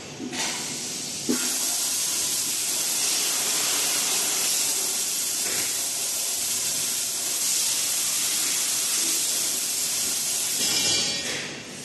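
Fiber laser tube cutter's bevel cutting head at work: a loud, steady hiss of assist gas jetting from the nozzle during the cut. It starts with a sharp click about a second in and dies away near the end.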